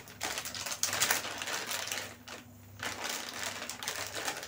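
Dried red chillies crackling and sizzling in hot oil in a kadhai: a dense run of pops and spits that eases off briefly a little after two seconds in.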